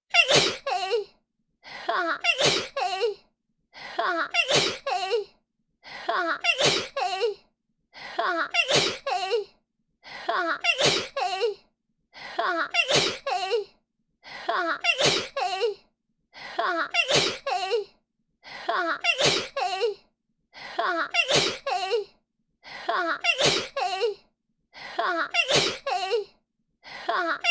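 A woman's sneeze, the same recording looped over and over: each one a short intake of breath and then the sneeze, repeating about every two seconds with a brief silence between.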